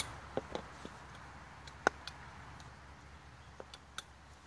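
A few scattered light clicks and knocks, with one sharper click about two seconds in, from the parts of a Disc-O-Bed camping cot being handled and fitted during assembly.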